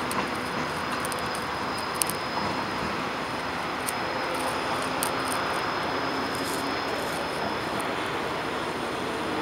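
A freight train hauled by a locomotive rolling slowly through a rail yard: a steady drone with faint scattered clicks.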